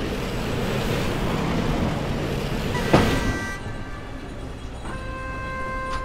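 Steady street-traffic noise, cut about three seconds in by a knock, then railway-yard sound at a locomotive turntable, where a steady metallic-sounding pitched tone starts near the end.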